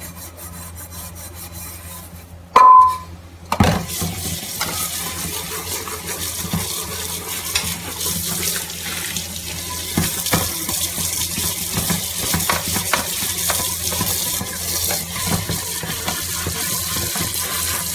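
Hand scrubbing the outside of a pressure cooker in a steel sink. About two and a half seconds in there is a short loud squeak. Then a tap runs steadily into and over the cooker while a hand rubs it out, with small knocks of metal.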